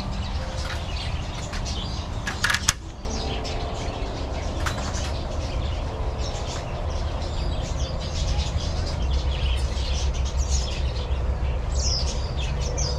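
Many small aviary birds, budgerigars and finches, chirping and twittering in short quick calls. About two and a half seconds in, two sharp clacks from the aviary's metal anti-escape door shutting.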